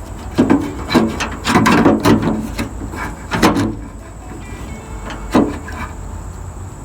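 Knocks and rattles of a replacement tailgate handle being shifted around in the pickup's tailgate to match up its bolt holes: a cluster of clunks in the first four seconds and one more about five and a half seconds in.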